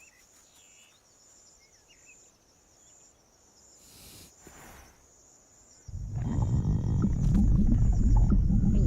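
Quiet animated-forest ambience: a faint, steady pulsing chirr like insects, a few faint bird chirps and a brief soft whoosh midway. About six seconds in, a loud, low rumbling animal-like sound sets in and continues.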